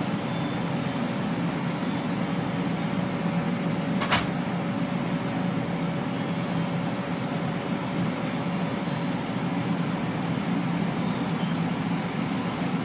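Inside a moving Long Island Rail Road commuter train between stations: a steady rumble with a faint constant hum. A single sharp click sounds about four seconds in.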